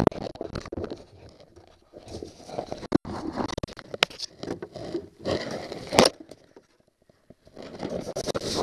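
Handling noise from hands and tools working in the cramped hull space under a boat's bow: irregular scraping and rustling, with a few sharp clicks, the loudest about six seconds in, and a brief lull near the end.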